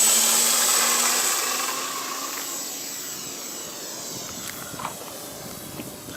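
Electric ducted-fan RC jet's high whine and rush of air as it flies away after takeoff, fading steadily.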